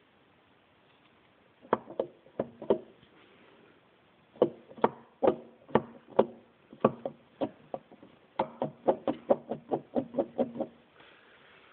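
Metallic clunks from a Lancia Y10 gearbox differential being rocked back and forth by hand, each knock ringing briefly, coming in uneven groups and quickening near the end. The clunking is the free play of worn, broken differential bearings.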